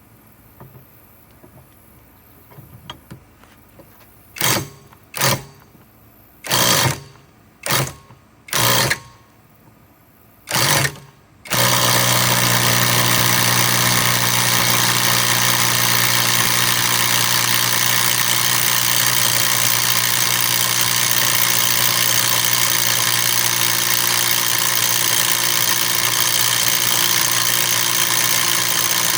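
Bauer brushless compact impact wrench, in reverse on a 1-1/2 inch nut: about six short trigger bursts, then from about eleven seconds in a long continuous run of hammering. The nut does not break loose.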